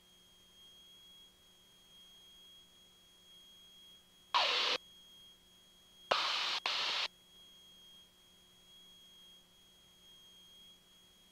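A faint steady high-pitched whine over a low hum on the cockpit audio feed, broken by three short bursts of harsh radio static that start and stop abruptly: one about four seconds in, then two close together around six seconds in. No engine drone comes through.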